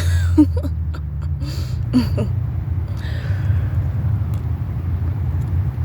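A steady low rumble, with a few brief, faint vocal sounds in the first two seconds.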